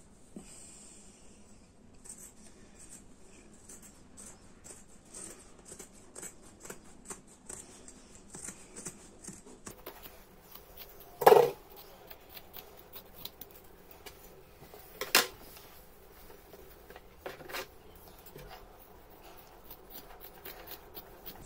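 Scissors cutting through cotton t-shirt fabric: a run of short snips and clicks, with a few louder sharp sounds, the loudest about eleven seconds in and another about fifteen seconds in.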